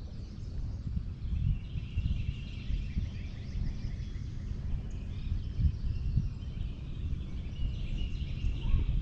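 Birds singing, repeated chirps and trills, over a steady low rumble.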